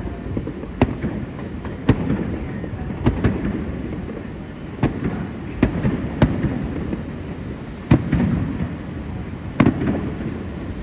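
Aerial fireworks bursting: about ten sharp bangs at uneven intervals, with a low rolling rumble between them.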